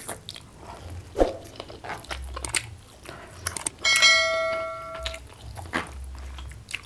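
Close-up mouth sounds of someone biting and chewing spicy chicken eaten by hand. About four seconds in, a bright bell chime sound effect, like a notification ding, rings out and fades over about a second.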